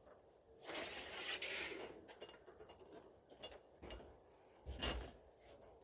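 Packaging and loose parts being handled: a rustle of paper or plastic about a second in, then a run of light clicks and knocks, with a heavier knock just before the end.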